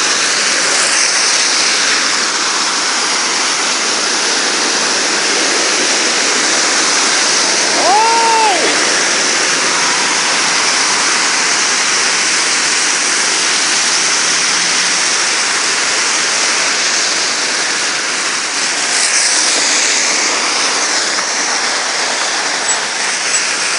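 Heavy rain falling steadily on a flooded street, an even hiss of water throughout. A brief tone rises and falls once about eight seconds in.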